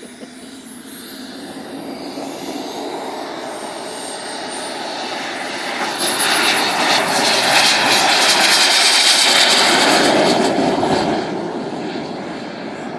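Turbine engine of a radio-controlled F-100 Super Sabre model jet at takeoff power on its takeoff roll: a high whine over a jet rush. It grows louder as the jet accelerates down the runway and passes, is loudest past the middle, then eases off as it moves away.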